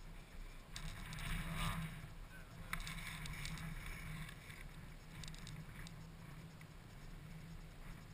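A quad's engine idling steadily, with scattered clicks and short rattles of hands working on a dead ATV's loose wiring, mostly in the first few seconds.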